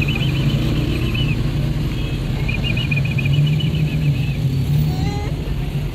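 Steady low rumble of a car's engine and road noise, heard from inside the car as it moves through street traffic. A rapid, high chirping trill sounds twice: once at the start and again a couple of seconds later.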